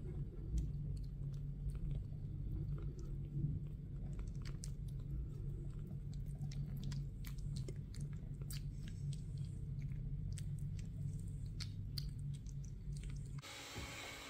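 Kitten chewing and licking food from fingertips, with many small wet clicks, over a steady low purr. Both stop abruptly near the end, leaving a faint hiss.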